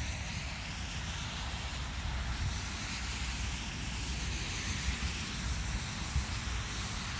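Wind buffeting a phone microphone outdoors: an uneven low rumble over a steady hiss.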